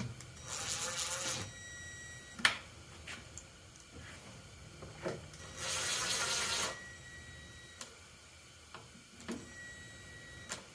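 Pointed screws being driven through a Jeep Wrangler JK taillight into the body, two grinding bursts of about a second each, one near the start and one about six seconds in, with sharp clicks and knocks of tool and part handling between them.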